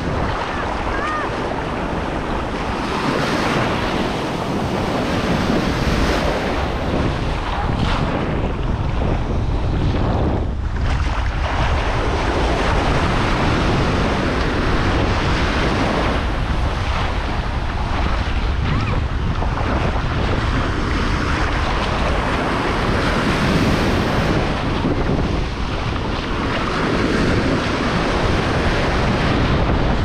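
Atlantic ocean surf breaking and washing up the shore, a continuous rushing hiss that swells and eases with the waves, with wind rumbling on the microphone.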